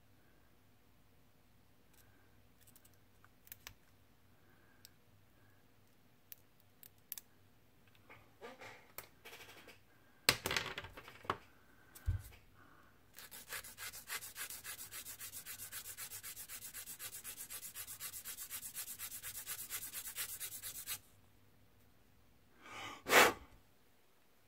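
A small plastic model part being rubbed down in rapid, even back-and-forth strokes for about eight seconds. This follows light clicks and a few short scrapes as sprue stubs are trimmed off with a hobby knife, and one brief louder scrape near the end.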